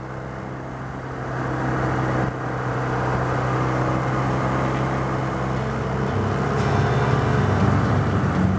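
BMW R1150R Rockster's boxer-twin engine running steadily under way, mixed with wind and road noise. It grows louder about a second in and again near the end.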